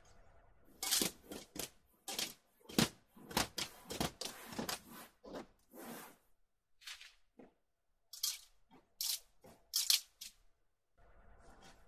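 Black steel 19-inch rack rails being handled: knocking against one another and scraping and sliding on cardboard as they are lifted off a stack and set down. There is a busy run of knocks and scrapes at first, then a few sharp separate clanks near the end.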